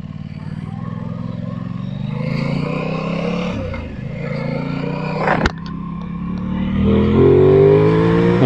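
Aprilia Tuono 660's parallel-twin engine pulling away and accelerating: the pitch rises, drops back briefly, a sharp click comes about five seconds in, then the revs climb steeply and loud near the end.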